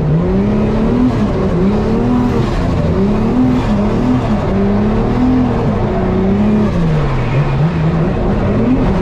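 Toyota 86's engine heard from inside the cabin, its revs rising and falling over and over as the car is driven hard around the track.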